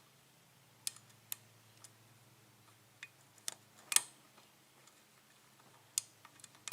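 Light, sharp metal clicks of a lock pick working the pin stacks inside a 5-pin Euro Alba lock during single-pin picking: about seven separate clicks, the sharpest about four seconds in. They are the feedback of pins being lifted and nudged toward the shear line.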